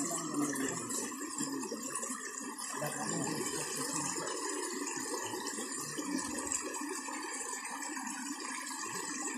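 Shallow stream running steadily over gravel and stones.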